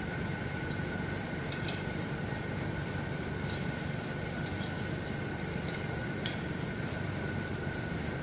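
Steady hum with a thin, high whine from the workshop background, with a few faint metallic clicks as the nuts and bolts holding a flat-stock fixture to a brake rotor are snugged up with a hand tool.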